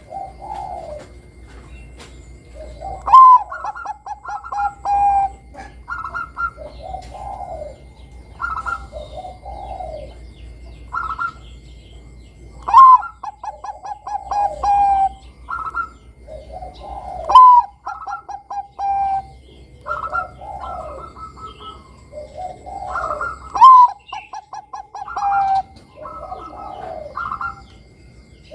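Bangkok-line zebra dove (perkutut) singing its cooing song in full. About four loud phrases each open with a sharp note and run into a quick string of short staccato coos, with softer, lower coos between them.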